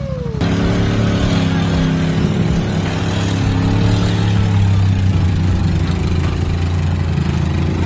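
ATV engine running at a steady speed, getting louder about half a second in.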